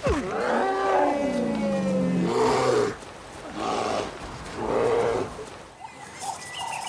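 A bear roaring, four long calls over about five seconds, the first sliding down in pitch.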